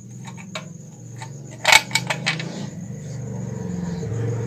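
Metal clicks and clinks of a tool and nuts being undone on an electric iron's handle fixings, with one loud metallic clink about two seconds in. A steady low hum and a thin high steady tone sit underneath.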